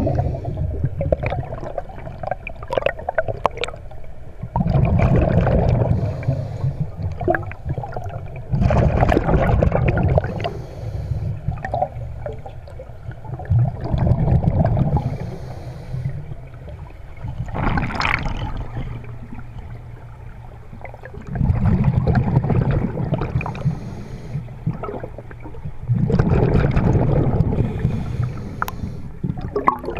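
Scuba regulator breathing recorded underwater: a gush of exhaled bubbles lasting a second or two, about every four seconds, with quieter inhalations through the regulator between them.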